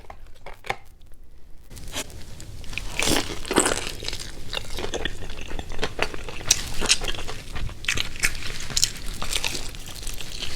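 Close-up biting and chewing of crispy Jollibee Chickenjoy fried chicken, irregular crackly crunches of the breaded skin beginning about two seconds in.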